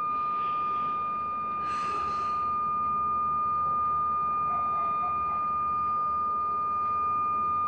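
A steady, unbroken high-pitched electronic tone, like a beep held without a break. A brief rushing hiss rises and fades about two seconds in.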